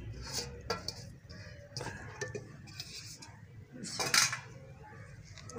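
Stainless steel bowls clinking and scraping against each other as grated carrots are tipped from one bowl into another, with a few short knocks and a louder metallic clatter about four seconds in.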